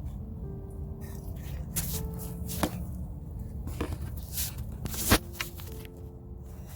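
Soft background music with held notes, over which come several sharp crunches or clicks, the loudest about five seconds in.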